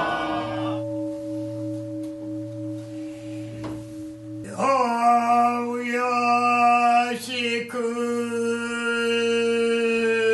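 A struck bowl bell rings on with steady tones and a slow pulsing hum. About four and a half seconds in, a man's voice starts a long chanted note, held steady at one pitch.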